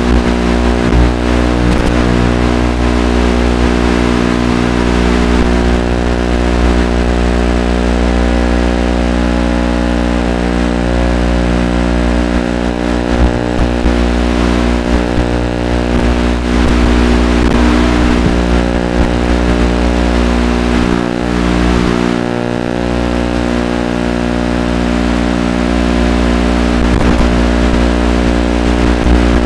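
A loud, steady droning hum made of many evenly spaced pitched tones, carried on the RC crawler's onboard FPV audio feed. It barely changes in pitch throughout and dips slightly about two-thirds of the way in.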